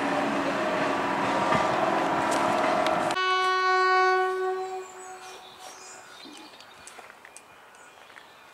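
Heritage diesel locomotive and train running loudly, then after a sudden cut a single long horn note that fades away over about a second and a half, leaving quiet outdoor ambience.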